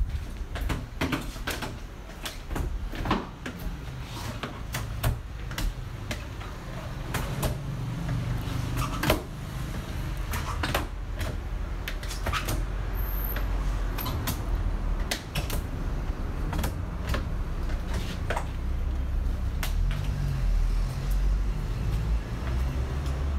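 Irregular clicks and knocks of handling work on a car during detailing, over a steady low rumble.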